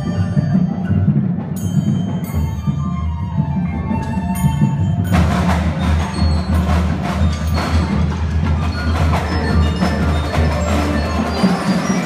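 High school marching band music led by the front ensemble's marimbas and mallet percussion, with bell-like ringing notes. About five seconds in the sound grows fuller and denser, with cymbal crashes and drum strikes over sustained low notes.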